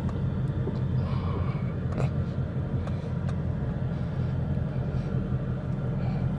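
Ford Mustang GT's V8 engine running with a steady low rumble.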